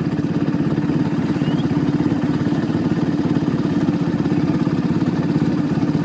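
ATV engine running at a steady idle with an even, rapid firing pulse.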